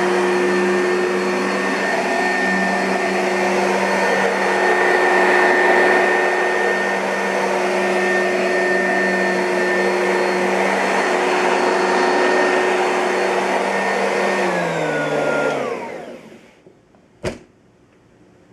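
2005 Oreck XL2 upright vacuum cleaner running steadily with a high whine, then switched off about fourteen seconds in, its motor winding down in falling pitch over about two seconds. A single sharp click follows near the end.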